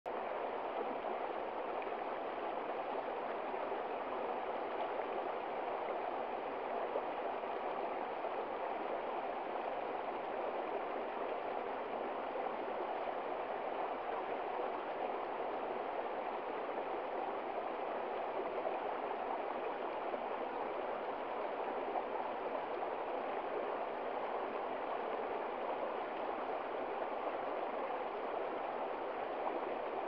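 Shallow rocky stream flowing over stones and small cascades: a steady rushing babble of water.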